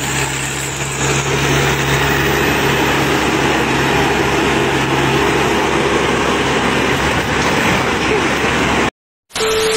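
Engine of a tracked combine harvester running steadily under a dense wash of machine noise, its low hum dropping away about five seconds in.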